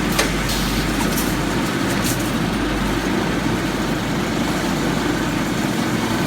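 Wire straightening and cutting machine running with a steady mechanical drone and hum, with a few light clicks in the first two seconds.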